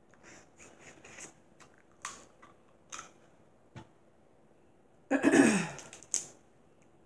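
Shell clicks and crackles from Dungeness crab and shrimp being picked apart by hand and eaten. About five seconds in there is a short, loud vocal noise that falls in pitch, followed by a sharp snap.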